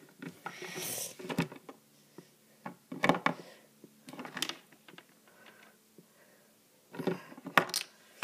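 Scattered light knocks, clicks and rustling, as small plastic toy figures are handled and moved about. They come in bursts about a second in, around three seconds in, and again near the end.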